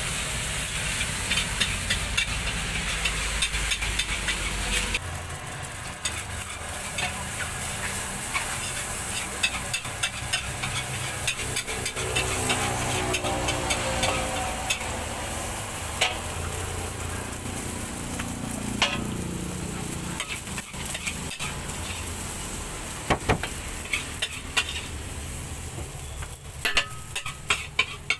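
Nasi goreng sizzling in a hot wok while a metal spatula scrapes and clanks against the pan as the rice is stirred, in its final stage with sweet soy sauce added. Near the end come quick rapid clanks as the wok is worked and tossed.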